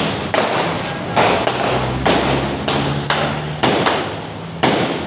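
Gunfire in a running exchange of shots: about ten sharp reports at irregular intervals, some in quick pairs, each with a short echoing tail.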